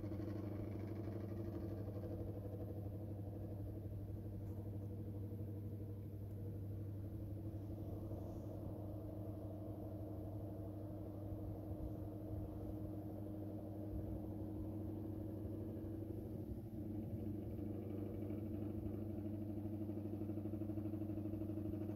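Steady electric hum from a 220 V, 55 W pedestal fan running on its lowest speed, driven by a 1500 W inverter from a 12 V battery.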